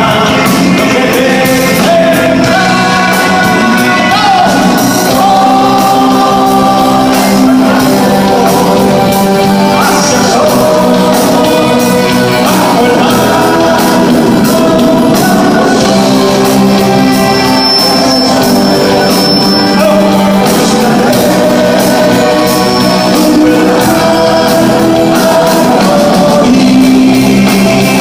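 Live rock band playing with a lead singer, loud and echoing in a large hall.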